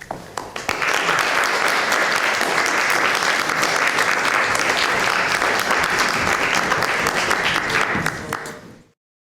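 Audience applause: a few scattered claps quickly build into steady clapping, which fades out near the end.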